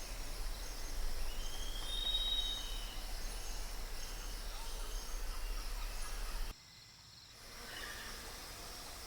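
Outdoor nature ambience: a steady hiss of background noise with a low hum, and a single drawn-out whistled bird call about two seconds in. About two-thirds of the way through the sound cuts out abruptly for a moment, then a quieter ambience of the same kind comes back.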